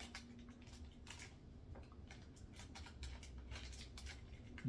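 Near silence: quiet room tone with a faint low hum and a few faint scattered clicks.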